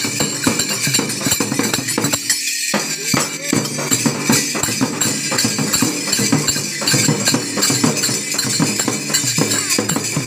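Dholak barrel drum and jhal hand cymbals playing a brisk folk rhythm for a Holi song, with men's voices singing along. About two seconds in the drum and voices drop out briefly while the cymbals keep jingling.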